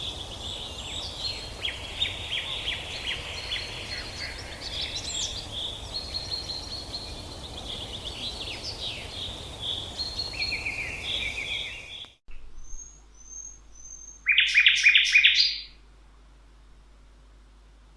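Songbirds singing and chirping over a steady background hiss. About twelve seconds in, the hiss cuts off abruptly. A few thin high chirps follow, then a loud, fast trill lasting about a second.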